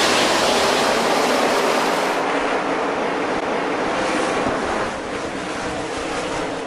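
Dubbed race-track audio of a pack of stock cars at speed: a dense, steady roar of many engines that eases off a little towards the end.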